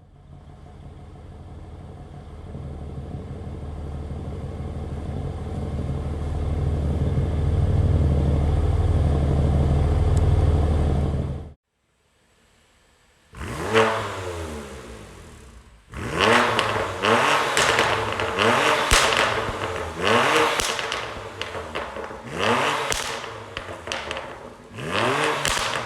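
BMW S55 twin-turbo straight-six through an aftermarket exhaust, first a steady low drone that builds louder for about eleven seconds and then cuts off. After a short gap come a series of quick throttle blips, each rev falling back with crackles and pops.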